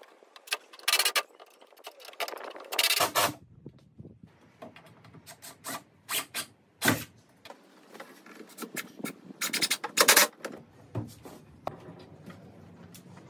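Timber framing being handled and fitted together: irregular knocks and scraping of wood against wood, with short loud bursts about a second in, near three seconds and around ten seconds, and a sharp knock near seven seconds.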